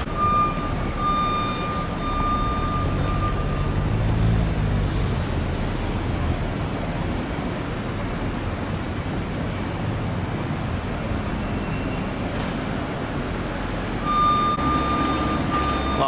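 Road traffic with buses and cars running, a steady low engine rumble that swells for a couple of seconds early in the clip. A thin, steady high tone sounds for the first few seconds and again near the end.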